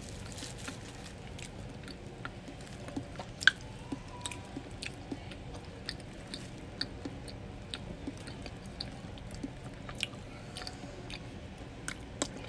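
A person chewing a mouthful of Big Mac, with soft, irregular mouth clicks throughout.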